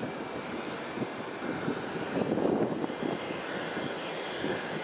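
Jet airliner engines: a steady rush of engine noise that swells louder for about a second, two seconds in.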